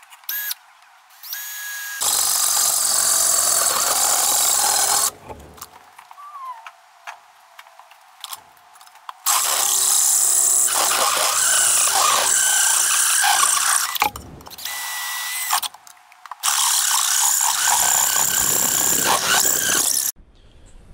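A hand-held power drill with a hole saw cuts through a sheet-metal plate clamped in a vise. It cuts in three runs of a few seconds each, with short pauses between them.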